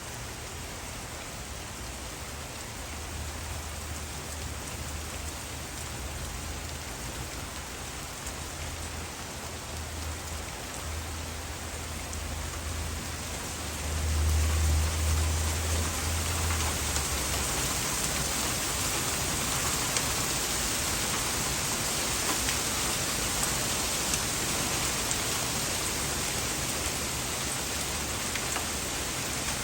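Heavy rain pouring down steadily, growing louder about halfway through, with a brief low rumble at that moment.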